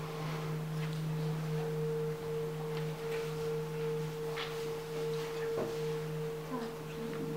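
Himalayan singing bowl sounding a steady, sustained hum that does not fade: a low tone and a higher tone held together, pulsing slightly.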